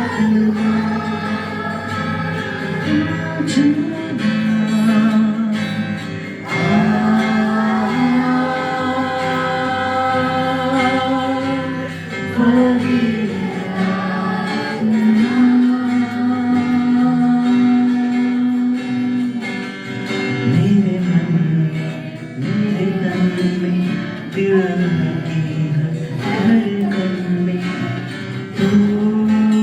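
Live worship music: acoustic guitar strumming under a held, wavering sung melody.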